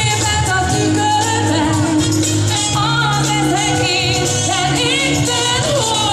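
A woman singing a pop song live into a handheld microphone over amplified backing music, with vibrato on her held notes.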